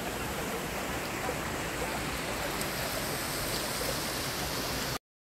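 Steady rushing of a small waterfall and stream over rocks, cutting off suddenly near the end.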